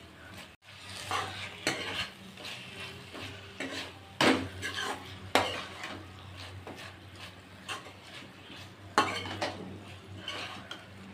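A steel spoon stirring and scraping small potatoes through thick masala in a non-stick kadai, with several sharp clinks of the spoon against the pan over a soft sizzle of the cooking.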